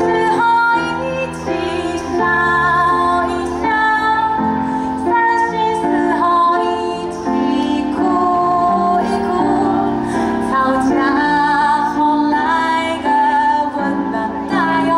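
A woman singing a melodic song over instrumental backing, holding notes with a wavering vibrato.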